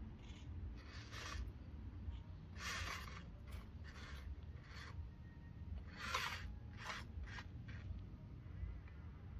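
A series of short scraping sounds at irregular intervals, about ten in all and the loudest about six seconds in, over a steady low rumble.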